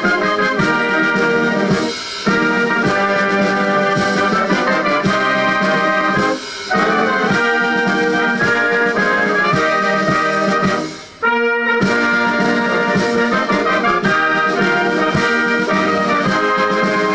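Brass band playing, with brief pauses between phrases about two, six and a half, and eleven seconds in.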